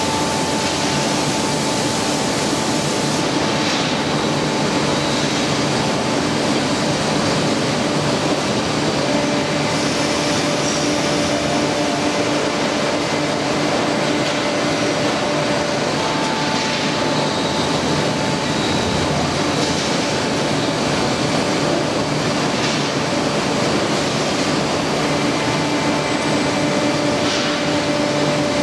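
Steady running noise of an automated bottle-palletizing line, with conveyors, drive motors and robot all running, a steady hum in several tones under a constant hiss. Now and then a short hiss rises over it.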